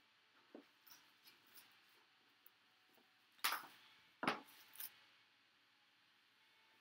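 A cardboard trading-card box being opened and its packaging handled: light rustles, then two louder sharp rustling scrapes about three and a half and four and a half seconds in, and a smaller one just before five seconds.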